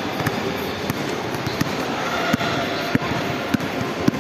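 Basketball bounces on a hard tiled floor during a dribbling drill: sharp knocks about every half second to second, loudest in the second half, over a steady background murmur.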